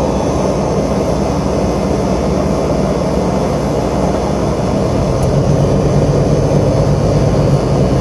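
Air-conditioning unit running steadily: a low hum with a rush of air through it. It is drawing close to its maximum amps, which the technician puts down to a plugged-up filter.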